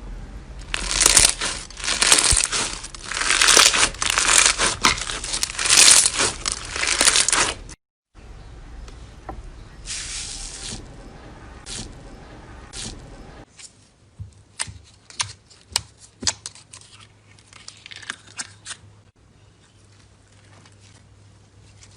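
Slime being stretched, pulled and squished by hand, making dense crackling and tearing sounds. After a short break about a third of the way in, the sound turns softer, and in the second half it thins to scattered sharp pops and clicks.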